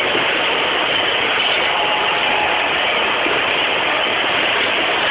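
Pakistan Railways passenger coaches passing at close range: a steady, loud running noise of steel wheels on the rails.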